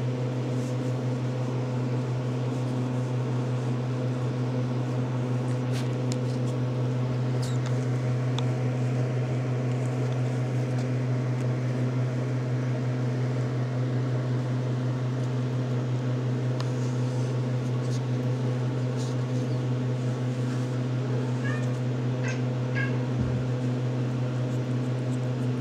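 Steady low hum throughout, with a few faint, short RagaMuffin kitten mews and small ticks near the end.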